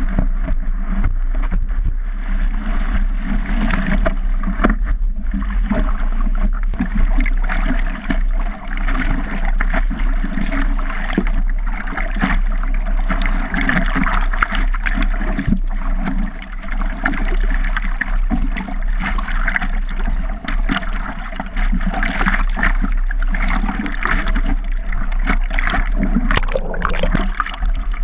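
Sea water sloshing and splashing around a surfboard as the surfer paddles and bobs on it, heard close up and muffled, with constant churning and small irregular surges.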